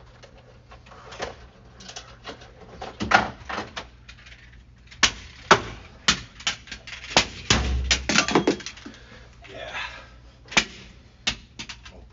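Objects being handled on an office desk: a run of sharp knocks and clatters, thickest in the second half, with one heavier low thump in the middle.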